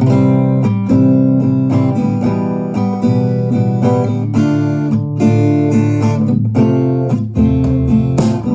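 Instrumental music led by plucked and strummed acoustic guitar, starting suddenly out of silence.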